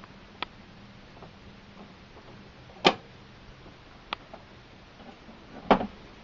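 Clicks and knocks of an Epson Stylus DX8400 all-in-one printer's plastic casing being handled. There are a few light clicks and two louder knocks, about three seconds apart.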